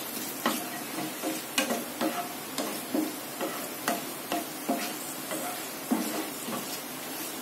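Whole spices (bay leaves, dried red chillies, cardamom, cinnamon and cloves) frying in hot oil and ghee with a steady sizzle, while a spatula stirs them, knocking and scraping against the pan in irregular clicks.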